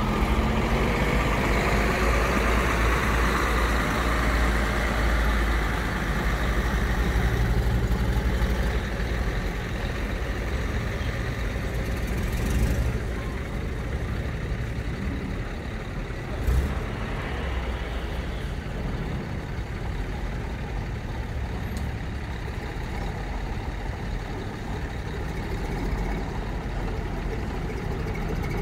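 Heavy diesel engines of vintage lorries running as they pull slowly across the field, loudest in the first several seconds, then a steadier lower running note. There is one short knock a little past the middle.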